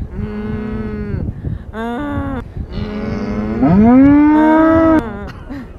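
Cow-like mooing: three moos, the last the longest and loudest, rising in pitch and cutting off abruptly.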